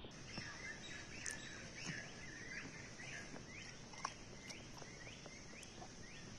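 A bird calling over and over in short rising chirps, about two or three a second. Faint crunchy clicks of raw green mango being chewed come through, the sharpest about four seconds in.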